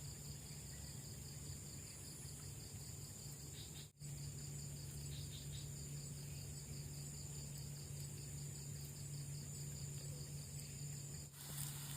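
Night insects, crickets, chirping in a steady, rapid pulsing trill over a low steady hum. The sound drops out briefly twice, about four seconds in and near the end.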